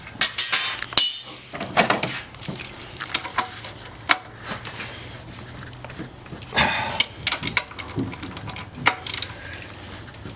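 Metal hand tool clicking and clinking on an alternator's mounting bolts as they are cranked in to pull the alternator forward into belt alignment. The clicks come irregularly, with a denser clatter about two-thirds of the way through.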